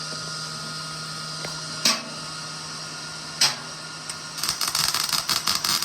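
Electric arc welder: a steady machine hum, two short sharp pops as the arc is struck, then from about four seconds in a continuous crackling arc as the weld is run.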